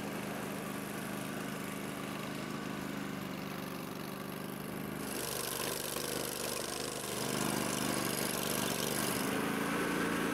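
Engine of a tracked amphibious all-terrain vehicle running steadily as it drives across a bog. About halfway through, a loud hiss of the tracks and wheels running through grass joins it for a few seconds.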